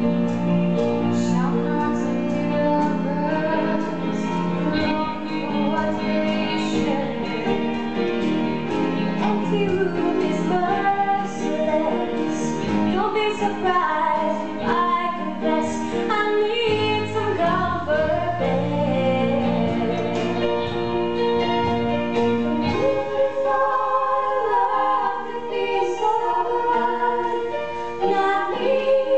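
A young woman's solo voice singing a musical-theatre song over instrumental accompaniment.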